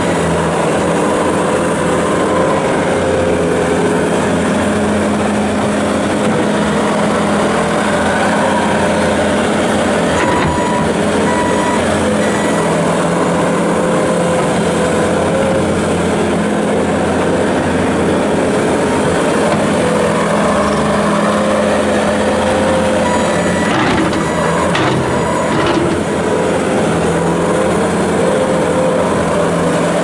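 Bobcat S650 skid steer's 74 hp turbo diesel engine running steadily at working throttle while the loader dumps and digs dirt, with a few knocks about three-quarters of the way through.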